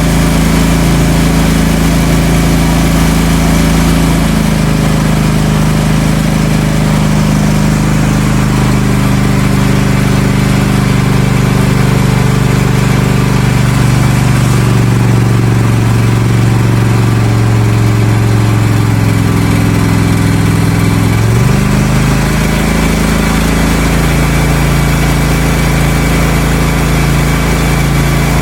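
Cub Cadet ZT1 54-inch zero-turn mower's engine running steadily, now starting on a new battery. About 21 seconds in its pitch climbs quickly as the engine speeds up.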